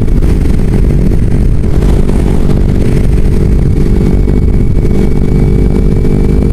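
Kawasaki Ninja 250's parallel-twin engine running at a steady cruise while riding at road speed, over a constant rush of wind and road noise.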